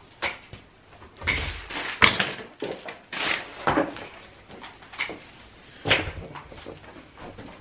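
Fabric and tissue paper rustling in short bursts, broken by a few sharp clicks and knocks, as a black crepe blazer is handled and pulled on.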